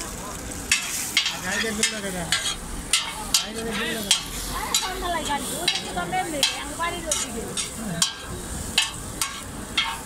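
Penne and beaten egg sizzling in a large shallow metal pan, with a flat metal spatula scraping and striking the pan once or twice a second as the food is tossed.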